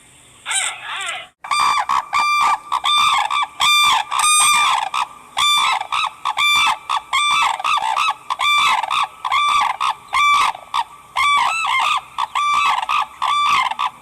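Geese honking: a long rapid series of short, loud, same-pitched honks, about two a second, with some calls overlapping near the end.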